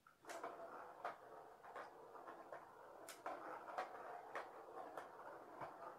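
A ball rattling around a plastic circular track toy as a kitten bats at it: a steady rolling rattle that starts about a third of a second in, with sharp clicks of paw strikes and knocks every half second or so.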